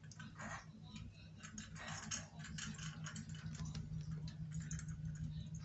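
Kakariki eating: quick irregular clicks and taps of its beak on seed and food, over a steady low hum.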